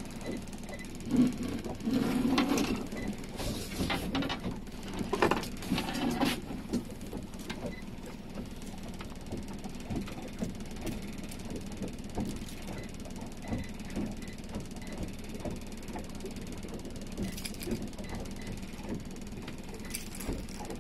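Honda BF60 four-stroke outboard motor running at low speed with a steady hum. Over it come clattering knocks between about one and six seconds in, then scattered light ticks, as a caught zander is unhooked and handled in the cockpit.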